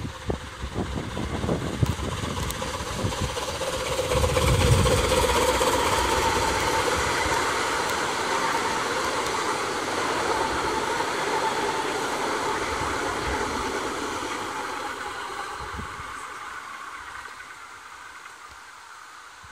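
A 381 mm gauge miniature park-railway steam locomotive and its open passenger carriages running past on the track. The sound grows to its loudest about four to five seconds in, then fades as the train rolls away.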